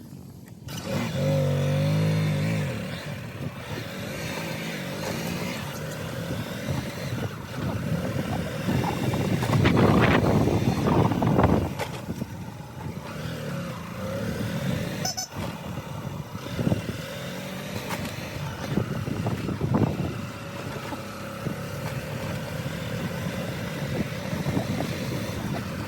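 Motorcycle running along a road with wind noise on the microphone, swelling into a louder rush about ten seconds in.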